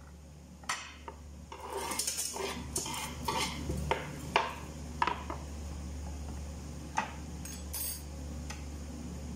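Light kitchen clatter: a run of clinks and scrapes of a metal spoon and broken eggshell on a wooden cutting board as the shells are cleared away, thickest in the first half, then a few single clicks. A steady low hum sits under it throughout.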